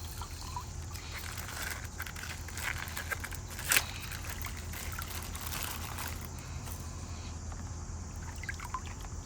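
Water trickling and dribbling as a water-filled plastic bag is opened by hand, with small scattered crackles and one sharp click a little under four seconds in, over a low steady hum.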